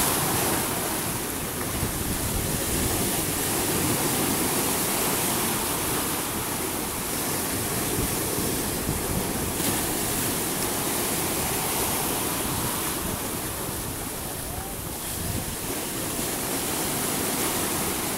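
Steady rush of seawater churning and foaming along the hull of a moving vessel, rising and falling in slow swells, with wind on the microphone.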